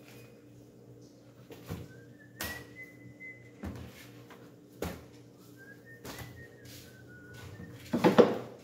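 A person whistling a slow tune in long, gliding notes, heard twice. Under it come scattered knocks of a butcher's knife and a pork leg against a wooden chopping block, with a louder cluster of knocks near the end.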